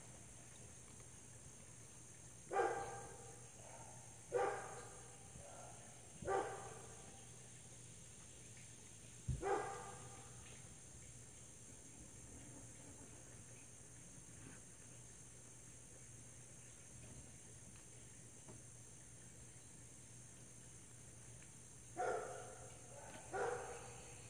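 A dog barking: six single barks, three about two seconds apart, one near ten seconds in, and two close together near the end, over a steady high insect buzz.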